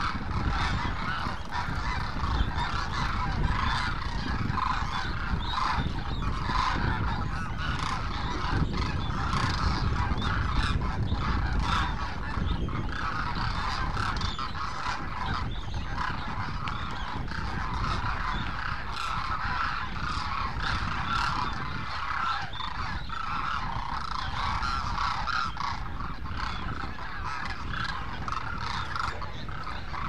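A large flock of demoiselle cranes calling without a break, a dense chorus of overlapping calls, with a steady low rumble underneath.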